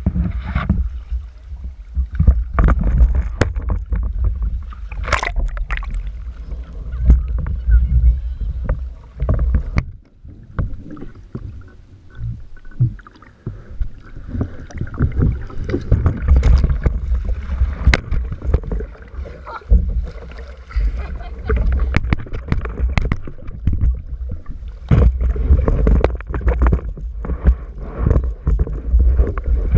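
Wind rumbling on the microphone and water splashing around a Topaz Taz sailing dinghy, with many irregular knocks and bumps against the boat.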